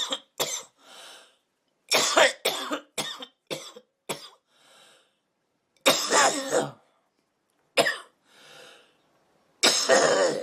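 A woman coughing in repeated fits while smoking: clusters of short coughs, about four or five fits, with a fainter breath drawn in between them.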